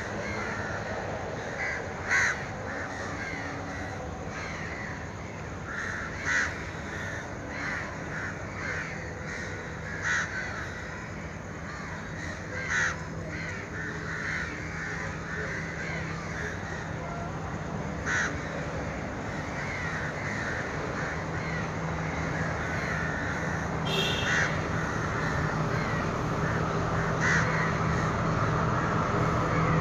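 Crows cawing, single loud calls every few seconds, over a dense chorus of smaller birds. Underneath, a stationary diesel train's engine idles with a steady low hum that grows louder toward the end.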